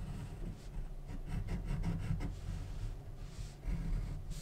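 Pen scratching on paper in a run of short strokes as a straight line and a zigzag resistor symbol are drawn.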